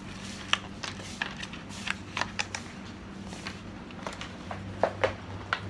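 Scattered light clicks and taps, a handful spread unevenly, over a steady low hum.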